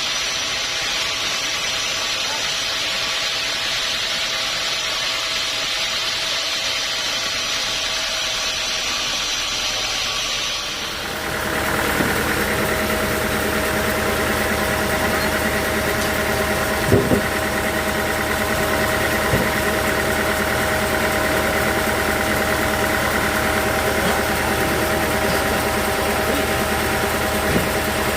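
Sawmill machinery running: a steady hiss for about the first ten seconds, then a steady engine-like drone with several tones and a few sharp knocks.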